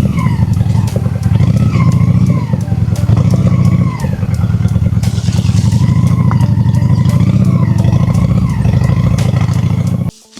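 Honda Shadow V-twin motorcycle engine running under way, loud, its pitch rising and falling several times as the rider works the throttle. The sound cuts off abruptly near the end.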